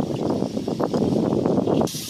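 Last of the spring lake ice breaking up and drifting, a dense crackling and clinking of many small ice pieces. It cuts off suddenly near the end, giving way to a steady hiss.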